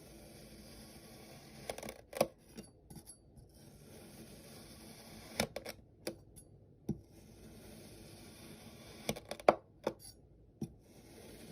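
Kinetic sand being cut with a knife: a grainy, crunching hiss in stretches of a couple of seconds, broken by short gaps and several sharp taps of the blade against the tray or the sand.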